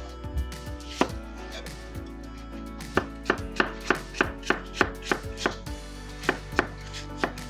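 Chef's knife dicing apple on a wooden cutting board, the blade knocking the board: one cut about a second in, then a quick run of strokes about four a second, then a few more near the end.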